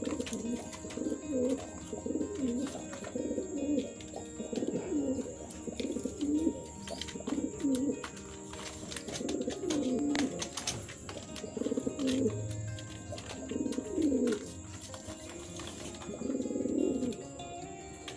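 Kaldom pigeons cooing over and over, each coo a low, bending phrase repeated about once a second.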